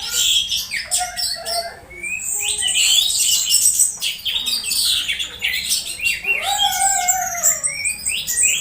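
Orange-headed thrush calling excitedly while being provoked: a rapid jumble of high chirps, scratchy notes and short whistles, with a lower falling whistle about seven seconds in.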